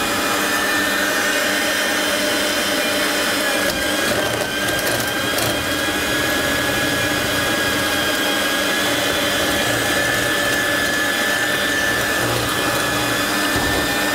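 Electric kitchen mixers running steadily: a hand mixer beating cream cheese as liquid jelly is poured in, with a stand mixer whipping cream. A steady motor whine sags slightly about four seconds in, then holds.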